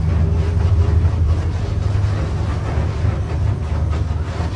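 Small gas blowtorch burning with a steady low roar, heating plastic tubing so it can be bent.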